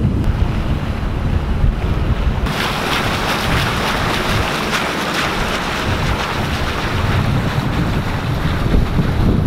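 Wind buffeting the microphone on a moving sailboat; about two and a half seconds in, a loud, even rushing hiss of water streaming and splashing past the bow joins it.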